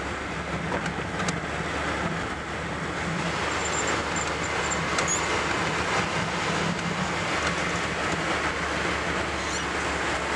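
Car engine and tyre noise heard from inside the cabin while driving: a steady low drone with road hiss, getting slightly louder after about two seconds.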